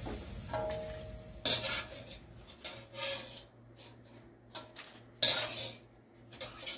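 Stainless wire skimmer clinking and scraping against a steel wok and bowl as boiled shrimp are scooped out: a handful of separate metal knocks, one ringing briefly about half a second in and the loudest about five seconds in.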